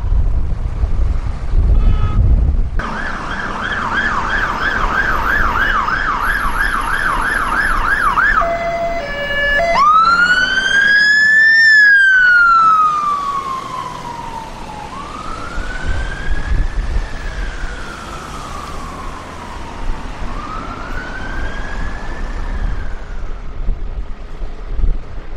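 London Fire Brigade fire engine sirens: first a fast yelp warbling about three times a second, then after a brief switch a slow wail rising and falling about every five seconds. Engine and road rumble sits underneath, loudest at the start.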